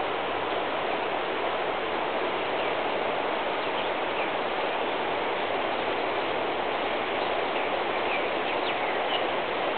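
Floodwater rushing steadily across a pasture, with a few faint bird chirps in the second half.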